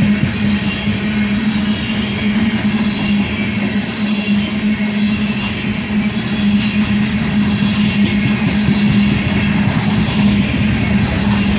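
Loaded coal hopper cars rolling past on steel wheels: a steady rolling noise of wheels on rail with a constant low hum.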